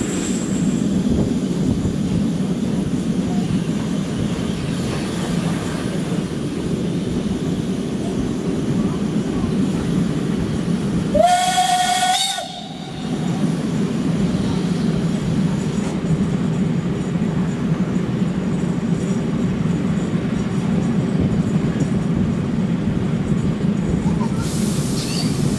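Steady rolling noise of a passenger carriage behind a steam locomotive, with one short blast of the locomotive's steam whistle about eleven seconds in, its pitch rising slightly as it opens. A brief hiss near the end.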